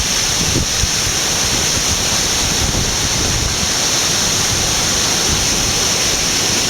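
Heavy rain pouring down in a strong wind: a loud, steady hiss.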